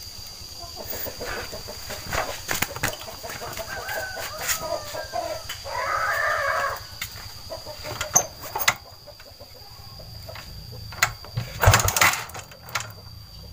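A chicken calls once, about a second long, around the middle, over scattered sharp clicks and knocks from work on a motorcycle engine that come loudest in a quick cluster near the end.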